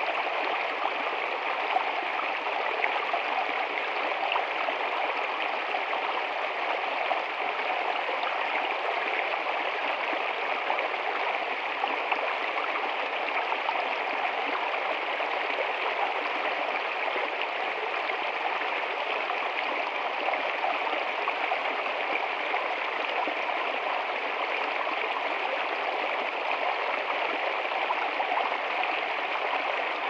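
Small rocky woodland stream running over stones in little cascades, with a steady gurgling rush of water.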